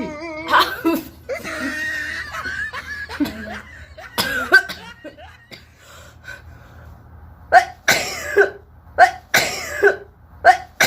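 A person coughing and sneezing, with laughter, as the nose is swabbed: a sharp burst about half a second in and another around four seconds, then a quick run of about seven bursts, roughly two a second, over the last three seconds.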